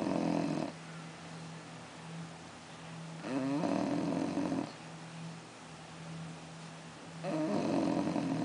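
Six-month-old bulldog puppy snoring in its sleep: loud, rattly snores about every four seconds, each a little over a second long, one ending just after the start, one about three and a half seconds in and one near the end.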